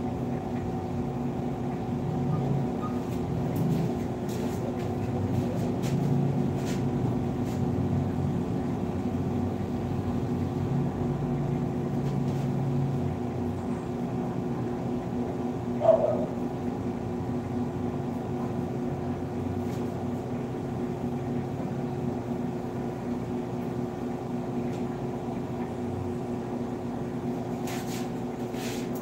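A steady electric hum, as of a small motor running, with a few faint clicks and one short louder sound about 16 seconds in.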